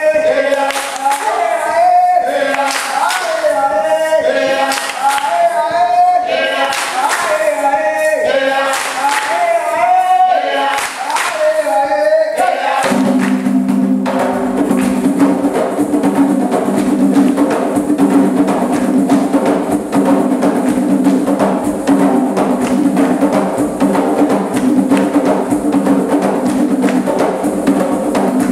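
Group singing a chant over hand claps; about halfway through a group of hand drums comes in all at once with a dense, driving rhythm that covers the voices.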